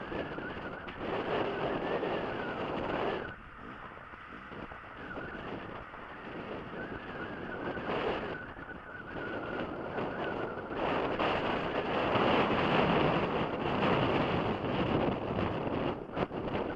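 Off-road motorcycle engine running over a rough, rocky track, a faint wavering engine note under heavy wind rush on the microphone. The rush swells louder about a second in and again through the second half.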